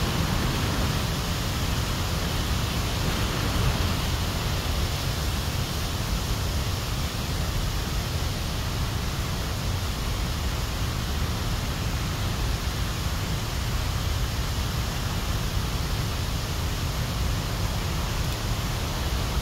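Steady rushing noise with a heavy low rumble, unbroken throughout.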